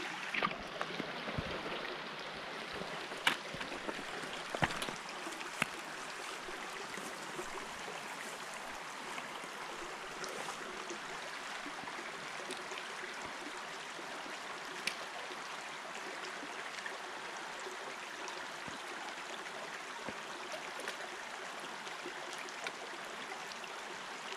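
Shallow rocky creek babbling steadily over stones. A few sharp knocks stand out in the first several seconds.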